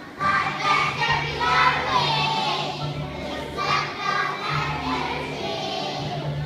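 A group of young children singing together in unison to a musical accompaniment with a steady low bass line.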